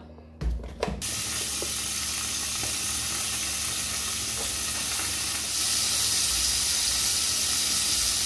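Margarine melting in hot oil in a nonstick pan, sizzling steadily and growing louder about five and a half seconds in. A few short knocks come first, in the first second.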